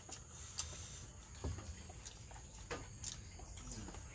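Quiet table sounds of people eating with their hands: scattered small clicks and taps of bones, plates and a glass being handled, over a steady faint high hiss.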